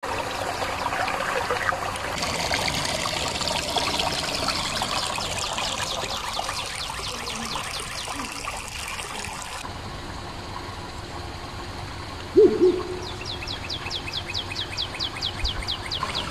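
Water pouring from a pipe into a pond, splashing steadily. Then birdsong: a brief loud low call about twelve seconds in, followed by a fast run of high, falling chirps.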